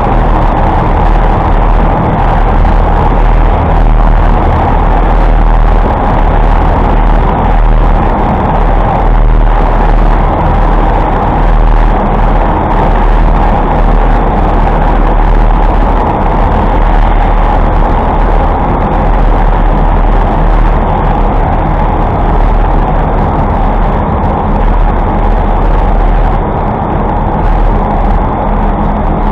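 City road traffic heard while riding a bicycle through it: a loud, steady rush with a low rumble underneath.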